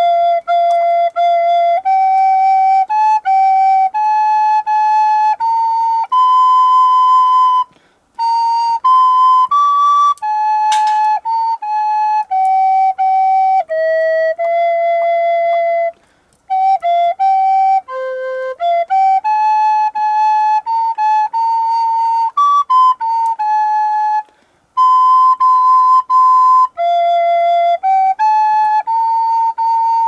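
A single flute-like wind instrument playing a slow, simple melody one held note at a time, in phrases of about eight seconds with short breaks between them.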